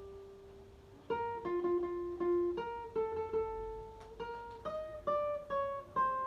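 Guitar picking a single-note circus clown tune. One held note fades for about a second, then about a dozen quick plucked notes step up and down the melody.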